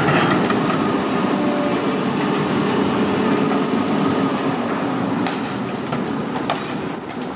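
Heavy diesel machinery engine running steadily, with a couple of sharp knocks in the second half.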